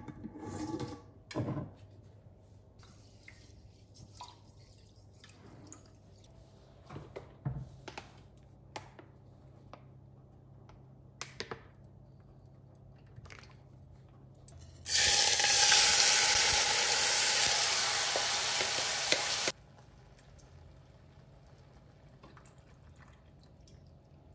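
Rice sizzling in hot oil in a saucepan: a loud hiss that starts suddenly about two-thirds of the way in, eases off slightly and cuts off after about four and a half seconds. Before it, light clinks and knocks of kitchenware.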